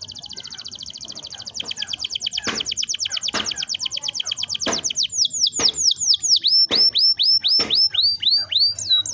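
Canary singing a long, fast roll of rapidly repeated high notes. About five seconds in it changes to slower whistled notes, two or three a second, each sliding downward. A few sharp clicks sound under the song.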